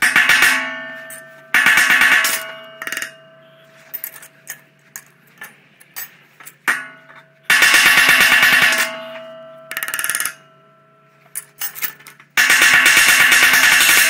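Hammer blows on silverware on a worktable, knocking the sterling silver handles off stainless steel utensils: four loud bursts of metallic clanging with ringing, near the start, about a second and a half later, around the middle and near the end, with lighter taps in between.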